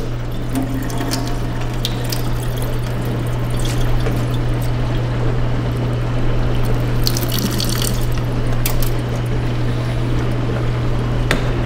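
Cloudy rinse water from washing rice being poured out of a glass measuring cup into a stainless steel sink, splashing toward the drain, over a steady low hum.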